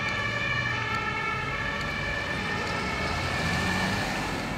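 Two-tone siren of an emergency vehicle passing in street traffic, stepping back and forth between two pitches and fading in the last second or so, over the rumble of traffic.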